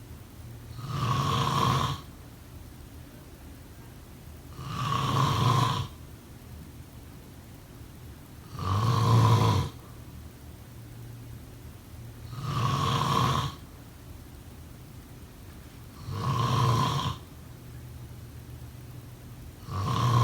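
A person snoring in a steady rhythm: five loud snores about every four seconds, each lasting about a second, with a sixth beginning at the very end.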